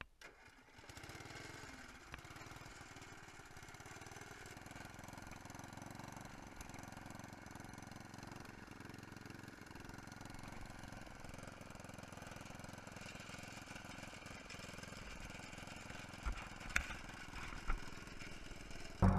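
1967 Wheel Horse 657 garden tractor's Tecumseh cast-iron six-horsepower single-cylinder engine starting about a second in and then running steadily. A few clunks near the end as the tractor is put into first gear.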